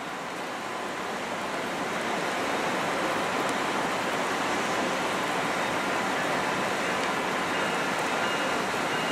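Steady rushing din of a GE P42 diesel locomotive pulling a passenger train out, heard from a distance, swelling a little over the first couple of seconds as it comes closer.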